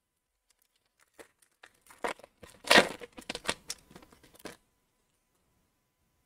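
Foil wrapper of an Upper Deck Series One hockey card pack torn open and crinkled by hand: a run of crackling rips lasting about three seconds, loudest about halfway through.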